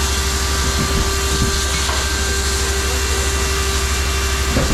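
Firefighting hose nozzle spraying water: a loud, steady hiss, over a steady low hum.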